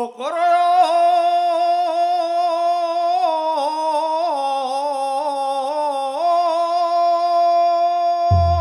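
Music: a solo melodic line, singing-like, with sliding pitch ornaments, settling into one long held note. Low drum beats come in just before the end.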